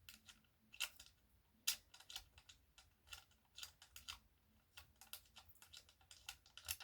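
Irregular light clicks and taps of small parts being handled while working on a Floyd Rose tremolo's mounting posts, about two or three a second, with a few louder knocks.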